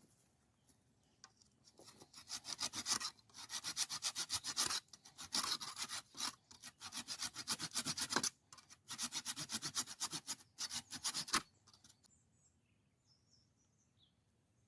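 Rapid rasping strokes, several a second, in runs broken by short pauses, stopping abruptly about eleven seconds in. Faint bird chirps follow.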